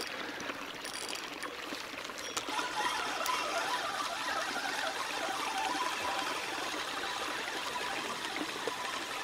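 Spinning reel on a feeder rod being cranked to wind in the line, a steady soft whir that picks up about two and a half seconds in. A small fish is on the line.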